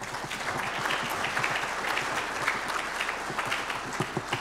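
Audience applauding, a steady round of clapping that begins to thin near the end.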